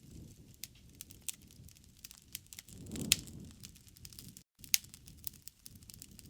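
Faint crackling of a wood fire: scattered small pops and snaps over a low, soft rumble, with the sharpest snap about three seconds in.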